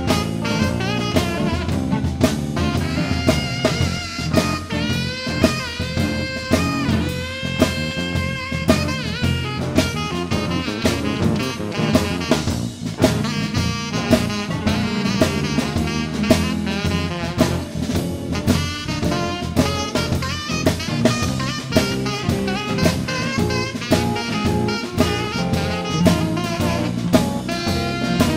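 Live blues band playing, with a saxophone carrying held and bending melody notes over a steady drum kit beat.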